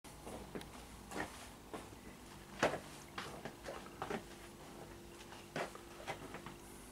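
Irregular light clicks and knocks, about a dozen, the loudest about two and a half seconds in, over a faint steady hum in a small room.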